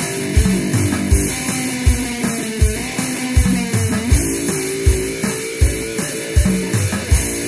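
One-string electric cigar box guitar (diddley bow) played slide-style, its notes gliding up and down in pitch, over a steady low drum beat thumping about twice a second.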